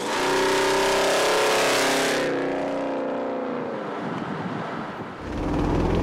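Mazda B2500 pickup with a swapped-in 4.6-liter DOHC V8 and side-exit dual exhaust driving past: a loud engine note that dips slightly in pitch, then fades as the truck pulls away about two seconds in. Near the end a deep low rumble rises.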